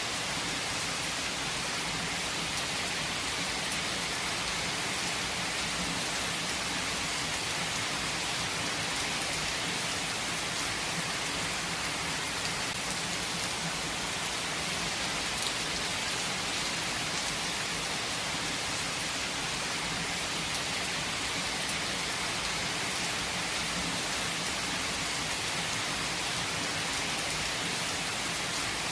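Steady rain falling, an even hiss with faint scattered drop ticks and no change in intensity.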